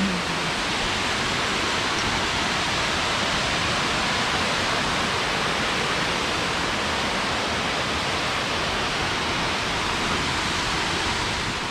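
Great Falls waterfall rushing into its plunge pool, a steady, even hiss of falling water, with the river running low.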